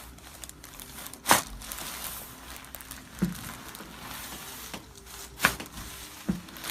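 Sharp cracks from a chiropractic adjustment: two loud ones about four seconds apart and two fainter ones, over soft rustling and crinkling as the patient moves on the treatment table.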